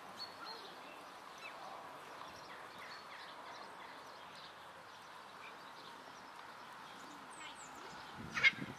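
Outdoor farmyard ambience: small birds chirping over a steady background noise, with one short, loud call near the end.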